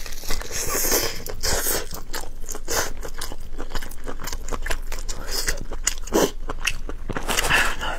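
Close-miked eating: biting and chewing braised pork knuckle, a run of short, irregular mouth sounds.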